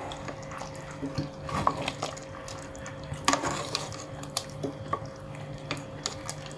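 Metal ladle stirring thick groundnut soup in a pot: the soup sloshes, with scattered clinks and scrapes of metal on the pot, over a faint steady hum.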